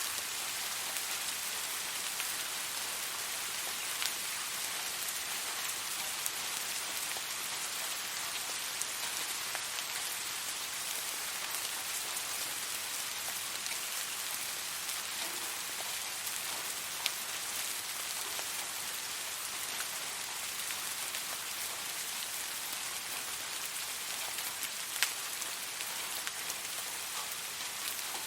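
Steady rain falling on a surface, an even hiss with a few louder individual drops striking nearby, the loudest near the end.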